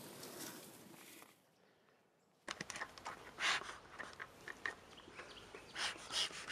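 Bee smoker being handled and loaded: small clicks, knocks and rustles as fuel is packed into the metal can, with a few short breathy puffs from its bellows. The sounds start after a silent gap, about two and a half seconds in.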